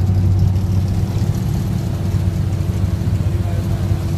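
Fishing boat's engine running steadily as the boat moves, a constant low hum over a steady hiss.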